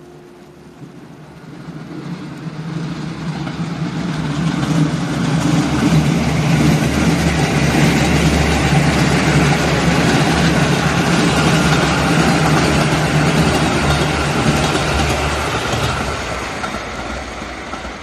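KiHa 85 series diesel multiple unit passing: the low drone of its Cummins diesel engines and the rush of wheels on rail build up over the first few seconds, stay loud for several seconds as the cars go by, then fade as the train draws away.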